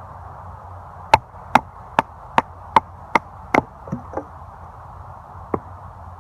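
A Habilis Bush Tool bushcraft knife chopping into a piece of fir: seven quick, sharp strikes about two and a half a second, followed by a few weaker knocks and one last strike near the end.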